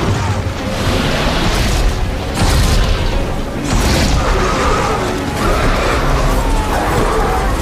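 Loud animated-film action soundtrack: dramatic music over heavy rumbling booms and crashing sound effects.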